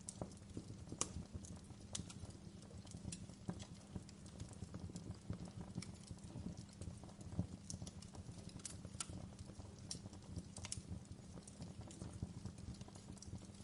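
Fireplace wood fire crackling: irregular sharp pops and snaps, a few to several a second, over a low steady rumble.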